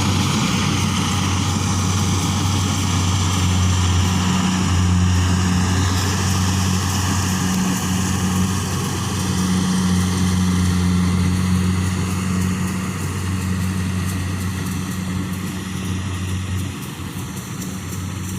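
Combine harvester running, a steady low engine drone with a wide machinery hiss over it, dipping slightly near the end.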